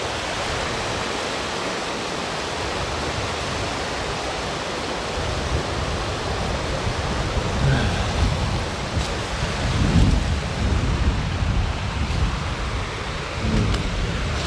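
Steady rushing of running water. Irregular low rumbles and bumps are added through the second half.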